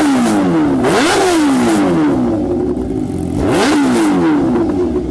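Kawasaki Ninja H2R's supercharged inline-four engine revving in sharp blips, the pitch shooting up and falling back three times: at the start, about a second in, and about three and a half seconds in.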